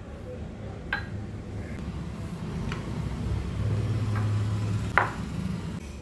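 A few light knocks and clinks of dishes and fruit being handled on a kitchen counter, four in all, the sharpest about five seconds in. A steady low hum runs underneath.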